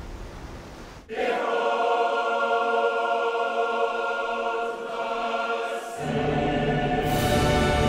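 Background music: choir-like voices holding sustained chords, coming in abruptly about a second in. A deep bass joins about six seconds in.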